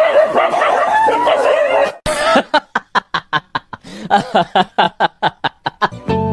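A person laughing in rapid, even bursts, about five a second, after about two seconds of a wavering, voice-like sound.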